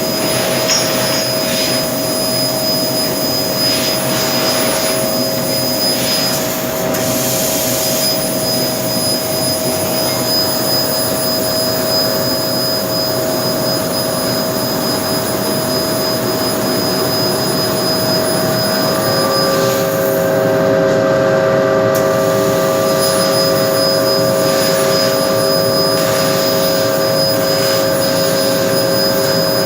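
A 1500 W fiber laser cutting machine running: a steady rushing noise with a steady whine, and further whining tones joining about two-thirds of the way through.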